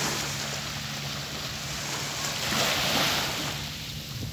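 Small waves lapping and breaking on a sand-and-pebble shore, one wash swelling louder for about a second near the middle, over a low steady hum.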